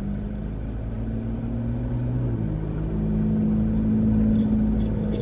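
Low steady hum inside a parked car, made of a few low tones that shift in pitch twice about halfway through, with a few faint ticks near the end.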